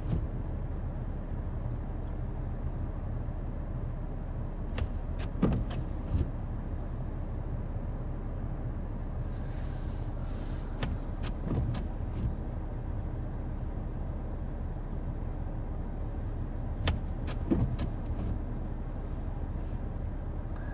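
A vehicle engine running steadily with a low hum, with a few scattered clicks and knocks and a short hiss about nine seconds in.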